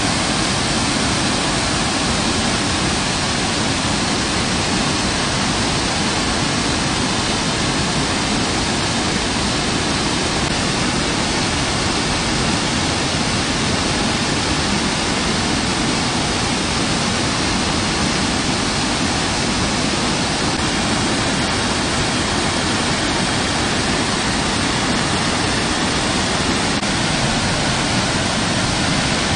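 Floodwater from heavy rain pouring over a concrete weir and churning through rapids in a swollen canal: a loud, steady rush of white water that does not let up.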